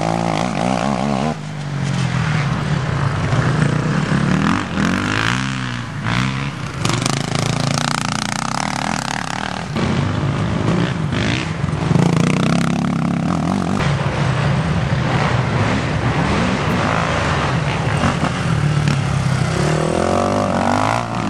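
Racing ATV (quad) engines running hard, their pitch rising and falling again and again as they rev up and ease off.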